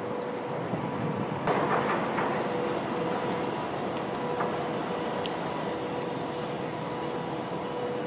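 Steady outdoor urban background noise: a continuous wash of distant traffic with a faint steady hum, swelling briefly about a second and a half in, with a few faint clicks.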